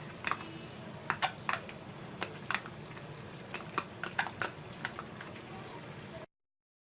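Spoon clicking and scraping against a cooking pot at irregular intervals while thick korma gravy is stirred, over a steady low hum. The sound cuts off suddenly near the end.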